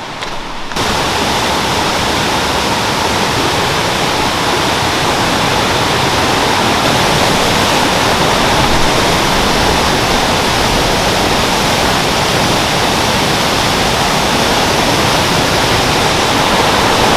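River waterfall pouring with a heavy, strong flow: a loud, steady rush of water that cuts in abruptly under a second in.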